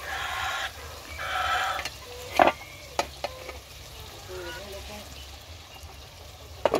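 Metal spatula scraping and stirring duck meat in an iron wok over a wood fire, with a steady sizzle of frying meat. Twice early on it scrapes the pan, then it knocks against the wok a few times, once sharply, and a steel lid clanks onto the wok near the end.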